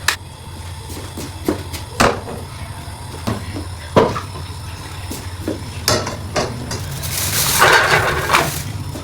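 Kitchen handling sounds: a few separate knocks of dishes and utensils being set down, about every two seconds. Near the end comes about two seconds of rushing noise, like water from a tap.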